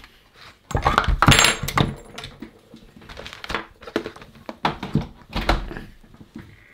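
Knocks, clunks and rattles of a hard-plastic cordless-drill battery charger and an opened battery pack being moved about and set down on a workbench mat. The loudest cluster of clatter comes about a second in, followed by scattered single knocks.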